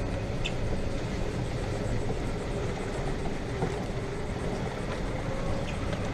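Golf cart driving along: a steady running rumble with a faint hum and a few light rattles.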